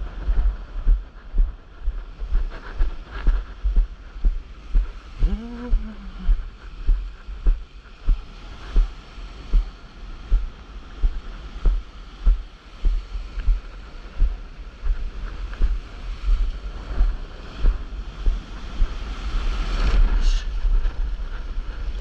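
Surf and whitewater washing around a board, with wind and water buffeting the action camera's microphone in repeated low thumps more than once a second. A short pitched sound rises and falls about five seconds in, and a louder rush of surf comes near the end.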